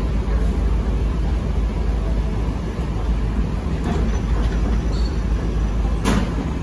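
Steady low rumble of a passenger ferry under way, engine and moving air, with a single brief knock about six seconds in.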